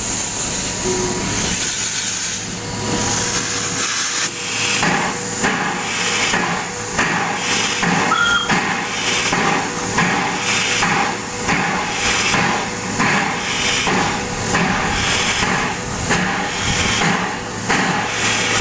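Steam engines hissing, then from about four seconds in, slow, regular exhaust chuffs about one and a half a second, as the W22 steam locomotive and the SMC1 'Coffee Pot' steam railcar move off.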